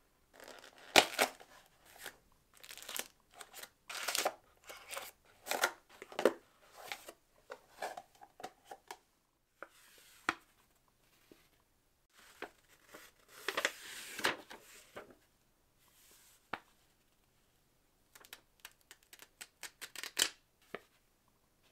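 Product packaging being handled and opened: crinkling and tearing rustles in irregular bursts with short pauses, then a quick run of sharp clicks and taps near the end.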